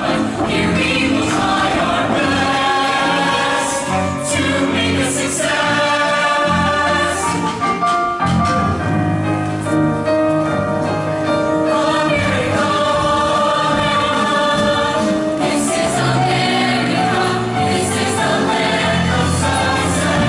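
Mixed-voice show choir singing.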